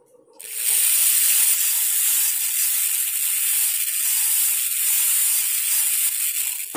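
High-speed dental handpiece running with a steady, high hiss as its bur cuts around a typodont premolar, reducing the palatal surface for a crown preparation. It starts about half a second in and cuts off suddenly near the end.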